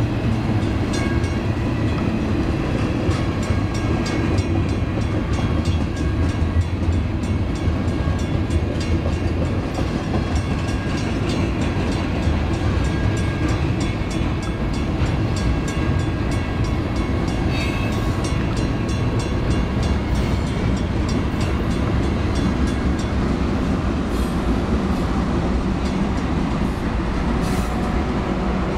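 BNSF double-stack intermodal train rolling past: a steady rumble from the container well cars, with wheels clicking over the rail joints. Near the end the locomotives arrive and their diesel engines join in.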